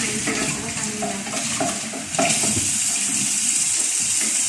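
Kitchen tap running into a stainless-steel sink, with water splashing as a small bowl is rinsed under it. The flow gets louder and brighter about two seconds in. A few light knocks of crockery against the sink come before that.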